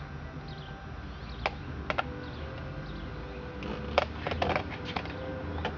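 Scattered light clicks and taps, a few early on and a cluster about four to five and a half seconds in, over a low steady hum: handling of the chainsaw.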